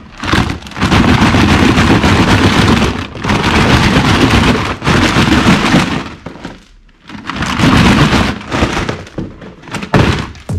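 Plastic toy pistols clattering and rattling against each other and the walls of a clear plastic storage box as it is shaken, loud and dense, in several long bouts with short pauses between them. Near the end there is one shorter clatter.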